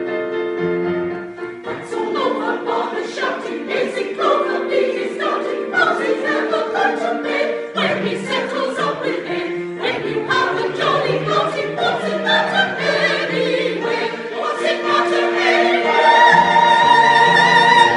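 Choir singing in parts, ending on a loud held final chord near the end.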